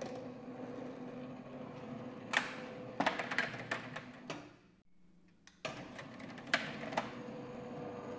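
A roller-shutter motor from 3T-MOTORS hums steadily while it drives the shutter, and the slats click and clatter. About four and a half seconds in the motor stops at its end position and goes quiet for about a second. It then starts again abruptly and runs on, with a couple more clicks from the slats.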